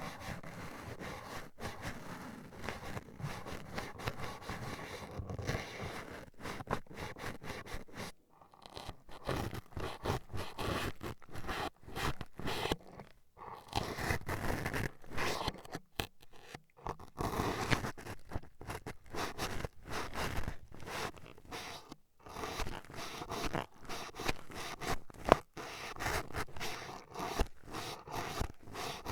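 Toothpick jabbing and scraping in rapid strokes against an ASMR microphone's ear, a close, crunchy scratching with a few short pauses.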